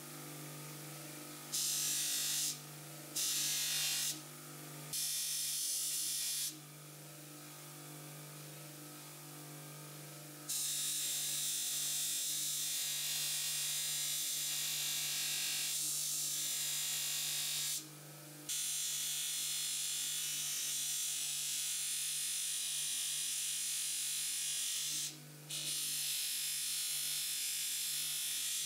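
Bench buffing machine running with a steady motor hum while a brass tube is pressed against its spinning buffing wheel, giving a loud hiss each time the metal meets the wheel. There are a few short contacts in the first several seconds, then long stretches of polishing from about ten seconds in, broken twice by brief lifts.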